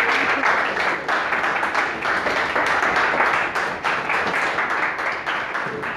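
Audience applauding, dense clapping that tapers off slightly near the end.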